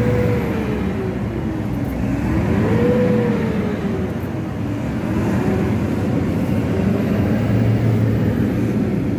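A truck running on the road, heard from inside its cab: a steady engine rumble with a whine that rises and falls a few times.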